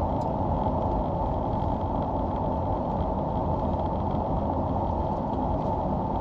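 Steady road and engine noise of a car being driven.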